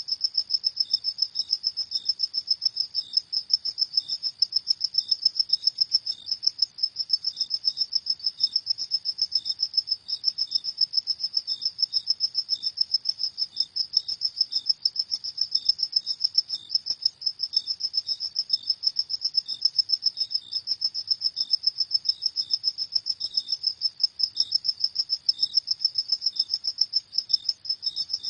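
Crickets chirping in a fast, even, high-pitched pulse, with a fainter, slightly lower chirp from a second cricket repeating at slower intervals.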